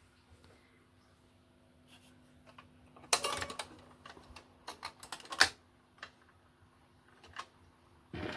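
A run of irregular sharp clicks and clunks, several close together in the middle and a louder one near the end, from a 1958 Philco Model 60 stereo record player being set going before the record plays, with a faint steady hum underneath.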